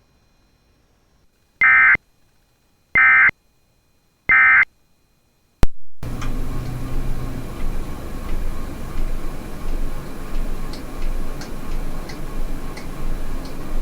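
Three short bursts of EAS/SAME digital data tones, the end-of-message code that closes a NOAA Weather Radio alert, evenly spaced out of silence. A sharp click follows, then a steady noisy hiss and rumble with faint scattered ticks.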